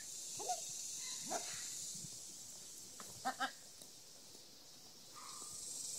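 Pembroke Welsh Corgi puppies, eight weeks old, giving a few short whimpers and yips: two brief rising whines in the first second and a half, then two quick sharp yips a little past the middle.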